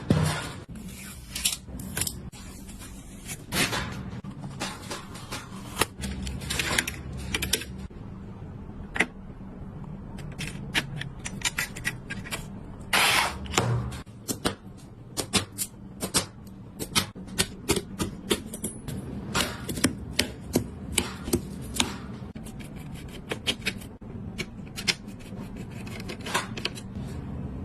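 Computer parts being handled and fitted together by hand: a long run of sharp, irregular clicks, taps and snaps, at times coming in quick runs, over a steady low hum.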